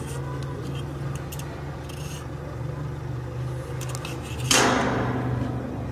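Handling noise from a small circuit board and its plastic casing being turned over in the hands: light clicks, then a loud rubbing rasp about four and a half seconds in that fades over a second, over a steady low hum.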